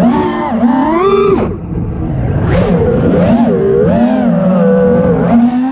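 FPV racing drone's brushless motors and propellers whining, the pitch rising and falling with the throttle as it banks and swoops, with a brief throttle dip about a second and a half in. Heard from the camera mounted on the drone itself.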